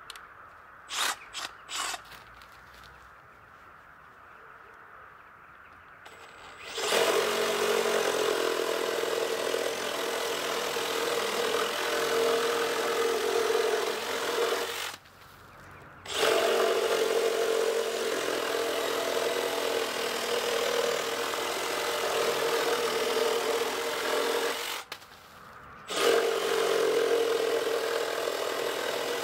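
Makita DJR187 18V brushless cordless reciprocating saw cutting through a wooden board: a few short clicks, then the saw runs hard through the wood from about seven seconds in, stopping briefly twice and starting again each time.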